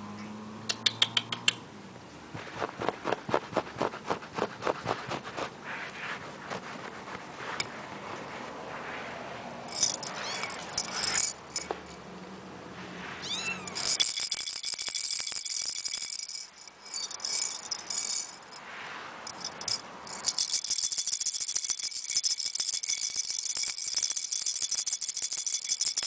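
Persian kitten playing with a cable on carpet: quick clicks and taps through the first several seconds, and a brief mew about 13 seconds in. From about 14 seconds a loud, high, steady jingling rattle sets in; it breaks off and returns about 20 seconds in.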